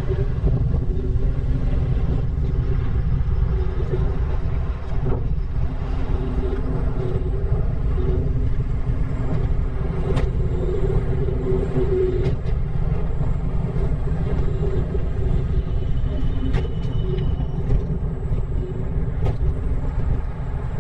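Steady low rumble of wind buffeting the microphone and tyre noise while riding a Segway D40X electric kick scooter, with a few faint ticks.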